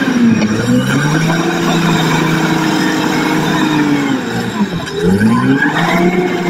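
Crawler bulldozer's diesel engine working under load as the blade pushes soil. Its pitch sags about four and a half seconds in, then climbs back up.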